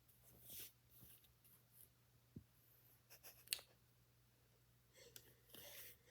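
Faint handling of Lego pieces: soft scratchy rustles and a few small plastic clicks, the sharpest about three and a half seconds in, over a low steady hum.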